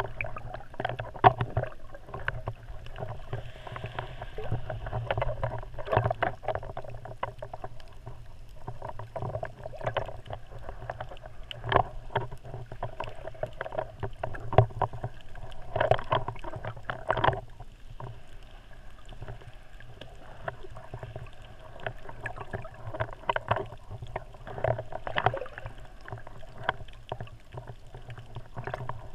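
Muffled underwater water noise: water sloshing and moving against a submerged camera, with many irregular clicks and knocks over a steady low rumble.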